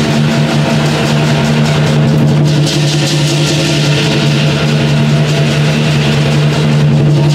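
Lion dance percussion ensemble playing: a big drum sounding with rapid, evenly repeated cymbal clashes, loud and unbroken.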